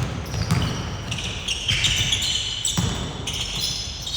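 Irregular sharp knocks over a steady low rumble, with wavering high squeaks, echoing as in a large hall.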